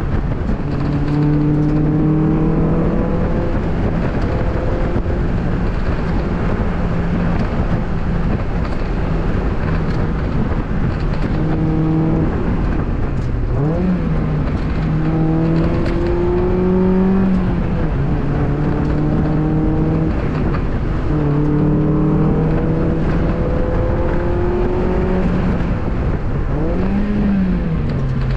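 2002 Mazda Miata's 1.8-litre four-cylinder engine working hard through an autocross course, its pitch climbing steadily under acceleration and dropping off between bursts, with a couple of quick dips and swings in pitch as it shifts, over steady road and wind noise in the cabin.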